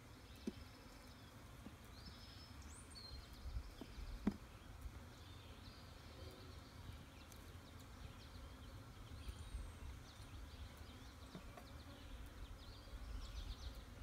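Quiet outdoor ambience with a low rumble, a few bird chirps about three seconds in, and two sharp taps, the louder about four seconds in, from a hive tool working the wooden frames of a nuc box.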